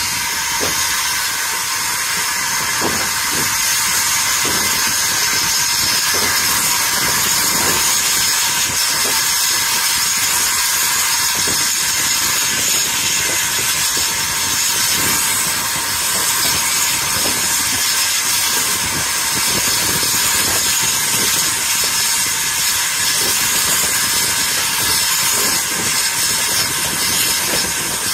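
Saddle-tank steam locomotive working a train, heard from just behind it: a steady, loud hiss of steam with faint, irregular knocks from the running gear and rails beneath it.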